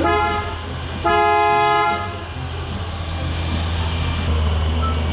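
Toyota FJ Cruiser's horn sounding twice: a short toot, then a longer honk about a second in, over a steady low hum.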